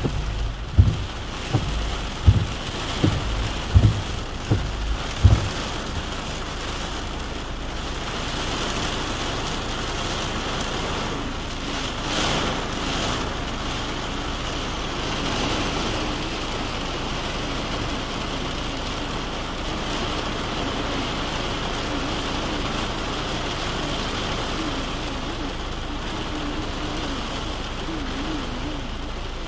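Heavy rain falling on a car's roof and windscreen, heard from inside the car as a steady hiss that swells briefly about twelve seconds in. During the first five seconds there is a series of low thumps, about one every three-quarters of a second.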